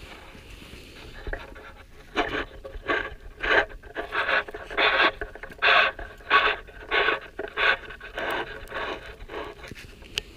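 A turkey slate (pot) friction call played as a hen yelp series: about a dozen scratchy notes, roughly one and a half a second, starting about two seconds in. It is a sharp click just before the end.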